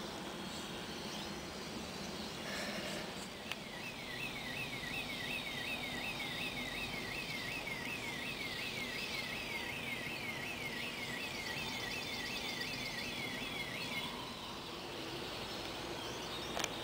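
Steady outdoor background noise. From about three seconds in until about fourteen seconds, a high chirp that falls in pitch repeats evenly, about two and a half times a second, then stops.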